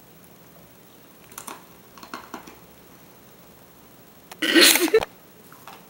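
Quiet room tone with a few faint soft noises, then a short loud burst from a woman's voice, not words, about four and a half seconds in.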